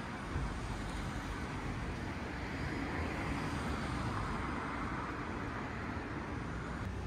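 Steady city traffic noise from a nearby road.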